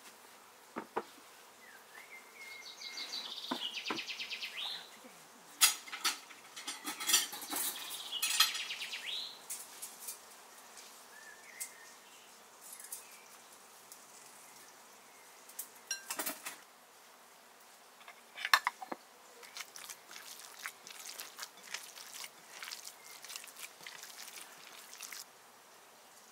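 Spoon and utensils clicking and knocking against ceramic ramekins, bowls and dishes during food preparation at a table. An insect buzzes past twice in the first half.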